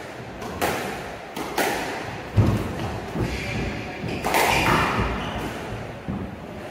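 Squash rally: sharp racket strikes and the ball thudding off the court walls, about six hits, each ringing in the enclosed court. The loudest, deepest thud comes about two and a half seconds in.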